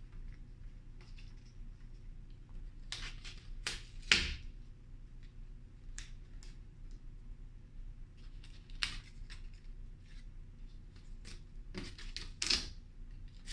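Paper cutouts being handled and pressed onto an easel board: scattered rustles and light taps, the loudest about four seconds in and another pair near the end, over a low steady hum.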